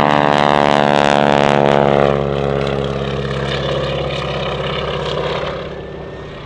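Grumman G-164 Ag-Cat biplane's engine and propeller droning in a loud close pass. The sound drops away after about two seconds and fades further near the end as the plane moves off.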